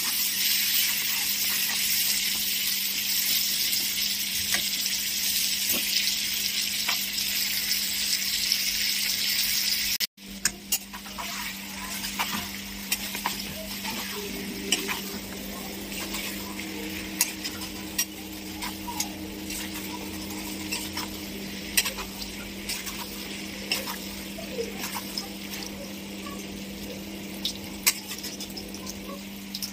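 Chicken pieces sizzling in oil in a steel kadai while a metal spatula stirs them, scraping and clinking against the pan. The sizzle is loud for the first third, cuts out for an instant, then goes on quieter with more frequent spatula clicks.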